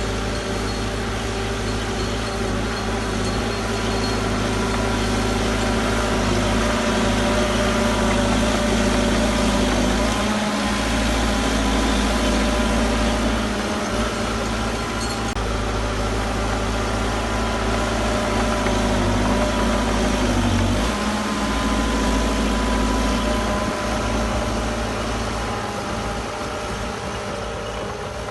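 Heavy diesel engine of earthmoving machinery running steadily under load, its pitch shifting a little twice as the engine speed changes.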